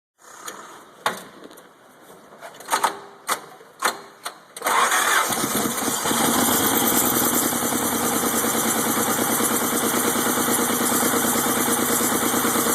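A few sharp clicks and knocks, then a Toyota forklift engine starts suddenly about four and a half seconds in and runs steadily with a fast, even pulse.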